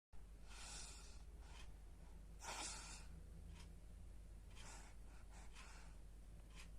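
A sleeping baby's faint breathing with light snores: a few soft, hissy breaths, the loudest about two and a half seconds in.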